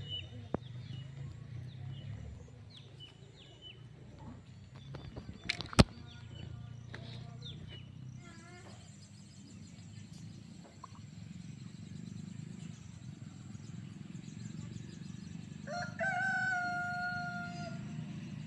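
A rooster crows once near the end, one long held call. Small birds chirp in the first half over a steady low background noise, and there is a single sharp click about six seconds in.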